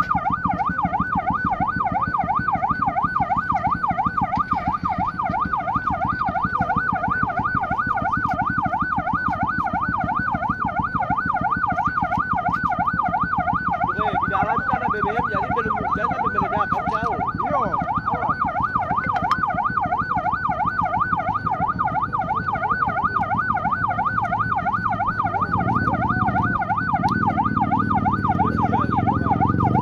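Emergency vehicle siren sounding continuously in a fast yelp, its pitch sweeping rapidly up and down several times a second. A low engine rumble underneath grows louder near the end.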